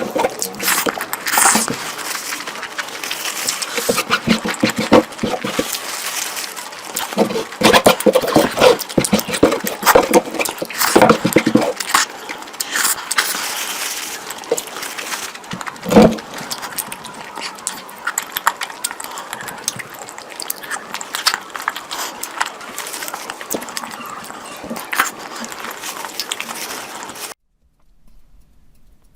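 Close-miked eating sounds: a person chewing curry with many wet smacks and clicks of mouth and food. The sound stops abruptly near the end.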